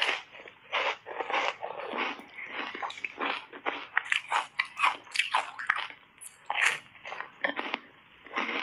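Frozen foam ice bar coated in matcha and milk powder being bitten and chewed: a sharp crunching bite at the start, then a quick run of crisp crunches as the ice is chewed, thinning out near the end.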